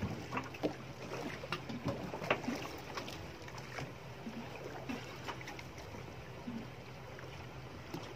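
Water lapping and slapping lightly against the hull of a boat sitting still on calm sea, with scattered small knocks and splashes over a steady low hum; the splashes are busiest in the first few seconds.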